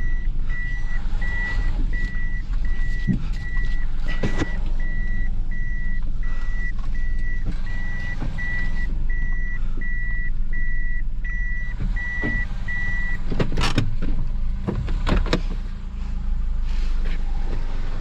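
A car's reverse-gear warning beeper sounding in the cabin at an even rate of about three beeps a second over the steady idle of the engine, while the car backs down with the transmission in reverse. The beeping stops about 13 seconds in, followed by a few knocks and clicks.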